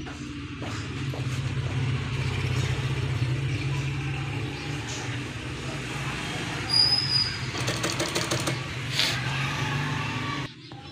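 Industrial sewing machine motor running with a steady hum. About three quarters of the way in comes a short burst of rapid stitching, and the sound cuts off sharply near the end.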